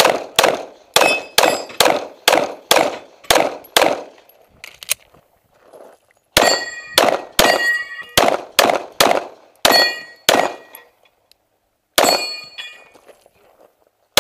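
Semi-automatic pistol fired in quick strings, about two shots a second, with a pause of a second or two partway through; several hits on steel plates ring out after the shots.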